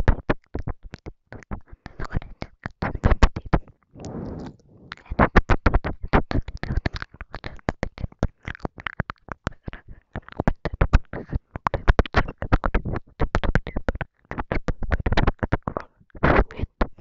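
Close-miked ASMR mouth sounds: rapid wet clicks and smacks of saliva and lips, many a second, mixed with breathy inaudible whispering and short pauses.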